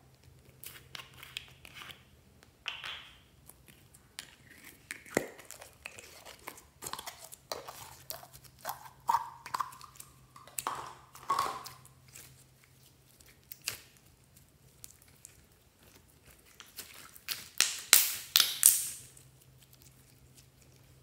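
Green glitter slime being handled: a plastic slime container worked open, then the slime pulled out and stretched by hand, giving irregular clicks and crackles, with a run of louder crackles near the end.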